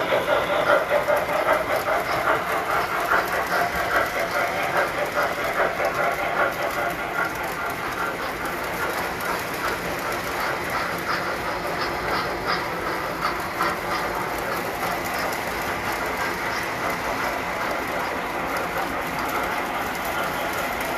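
Tinplate model train running on its track: a steady metallic clatter and rattle of wheels on rail. It is louder and more pulsing for the first several seconds, then evens out.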